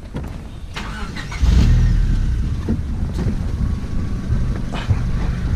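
Power window motors in a Honda Civic (EK) running as the windows go down slowly, with a steady low rumble that starts about a second and a half in and a faint motor whine. The windows seem to have a power loss.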